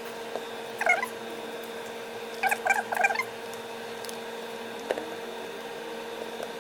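Short, high-pitched squeaking sounds: one about a second in, then three in quick succession a little later, over a steady low hum.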